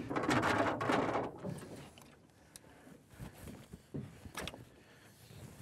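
A rustling, rushing noise for about the first second, then a scatter of light knocks and clunks of gear and a wooden paddle against a wooden canoe's hull as a man shifts about in the boat, the sharpest knock about four seconds in.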